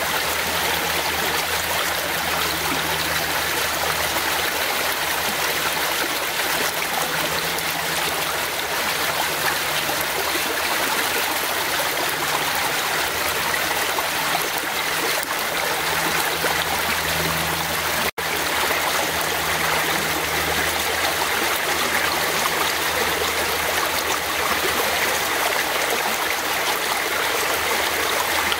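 Fast-flowing forest stream running steadily, a dense even wash of water noise. The sound cuts out for an instant about two-thirds of the way through.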